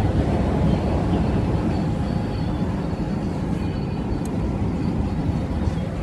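Steady low rumble of a truck's engine and road noise, heard from inside the cab while it drives at highway speed.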